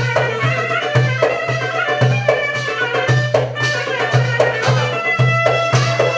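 Turkish folk dance tune (oyun havası) for a halay, a melody over a steady, regular drum beat.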